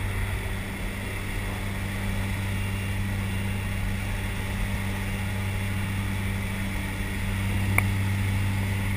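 Jump plane's engine drone heard inside the cabin in flight, steady and unchanging, with a single faint click near the end.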